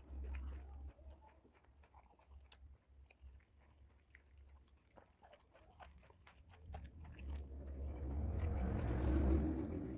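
Close-up chewing and crunching of raw lalapan vegetables: a quick run of sharp crunches and mouth clicks. A low rumble swells up over the last three seconds and is the loudest sound.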